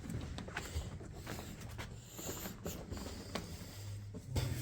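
Irregular footsteps and scuffs on a gritty tunnel floor, with low rumbling handling noise.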